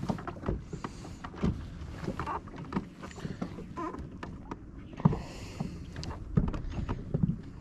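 Scattered light clicks and knocks of fishing gear and feet on a boat's deck, over a low steady rumble of water and wind.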